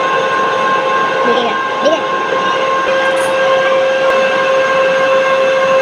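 Metal-turning lathe running steadily with a hum made of several steady tones. About three seconds in, one tone grows stronger as the boring bar cuts into the tin bronze workpiece.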